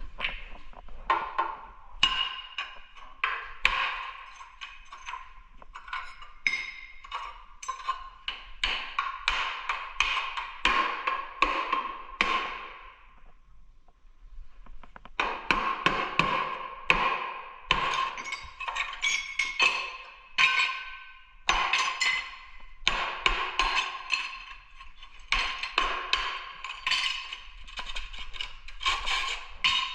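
Background music with light wooden percussion tapping, pausing briefly about halfway through.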